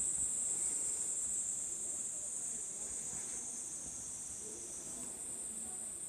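A steady, high-pitched chorus of insects chirring without a break, slowly getting quieter.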